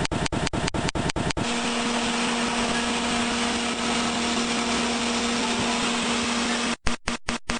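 Industrial drum dryer plant machinery running with a steady rushing noise and a low motor hum. At the start and again near the end the sound is chopped into a fast, regular pulse of about six or seven beats a second.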